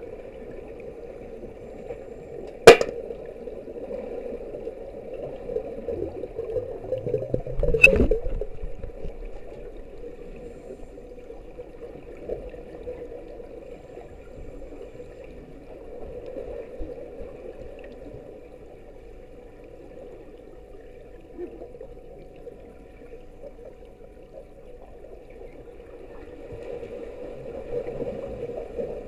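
Muffled underwater swimming-pool ambience heard through an action camera's waterproof housing on the pool floor, a steady dull wash of water noise. Two sharp knocks ring out about three and eight seconds in, the second after a brief swelling rumble.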